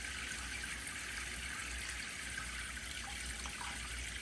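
Shower head spraying hot water from a water heater on test, a steady even hiss of running water with a low hum beneath.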